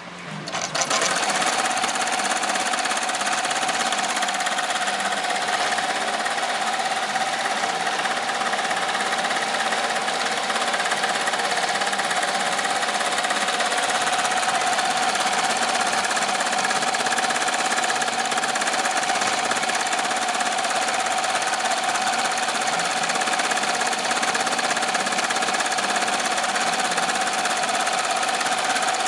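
2005 Amaya 16-needle commercial embroidery machine stitching at speed: a fast, steady clatter of the needle bar with an even hum. It starts up about a second in and runs without a break.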